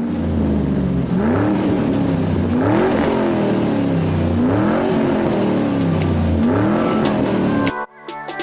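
1969 Dodge Charger's engine being revved in a series of about four blips, each rising in pitch and falling back to idle. It cuts off suddenly near the end.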